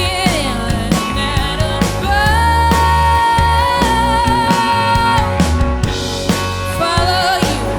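Rock band playing live: drums, bass guitar and electric guitar under a singer, who holds one long note in the middle.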